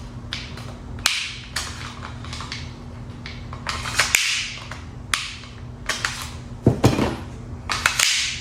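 Handling of a 1911 pistol and its metal magazine: a scattered series of sharp metallic clicks and clacks, about a dozen, with some rustling between them.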